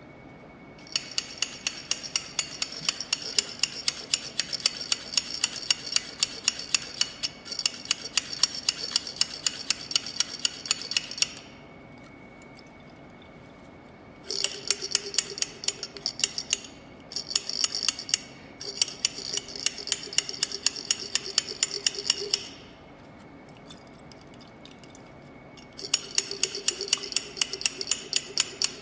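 Stirrer rod clicking against the inside of a closed stainless-steel coffee-cup calorimeter, a quick regular run of sharp metallic clicks, as sodium hydroxide and dilute hydrochloric acid are mixed during the neutralization. The stirring stops twice for a few seconds, about 11 and 22 seconds in, then starts again.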